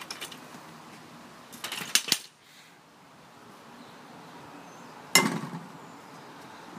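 Hollow plastic wiffle balls clattering against each other and a plastic bucket as one is picked out and set on the tee. About five seconds in comes one sharp crack as the bat hits the wiffle ball off the tee.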